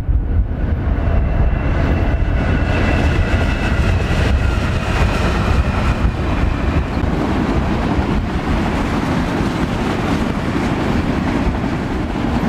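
Freight train passing at speed: the steady rumble of diesel locomotives and railcars rolling on the rails. A set of high steady tones sounds over it from about a second in until past the middle.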